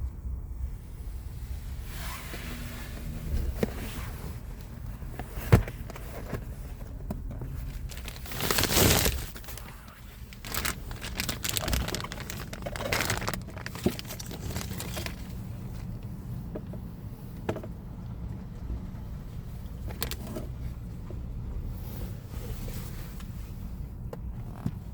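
2011 Mini Cooper S turbocharged four-cylinder engine idling with a cylinder misfire that makes the engine vibrate and shake, heard as a continuous low rumble. Rustling and clicks of handling sit over it, with a louder rushing noise about nine seconds in.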